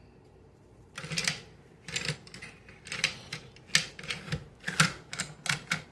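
Parts of a Micro Draco AK-pattern pistol clicking and rattling as it is taken apart by hand: a short scraping rattle about a second in, then a string of sharp, irregular mechanical clicks, about two a second.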